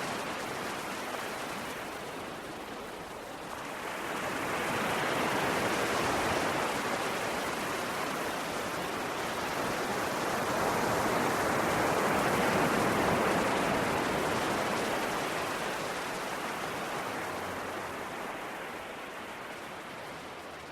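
Sea waves surging and washing onto the shore: a rushing hiss of surf that swells about four seconds in and again around twelve seconds, then ebbs away near the end.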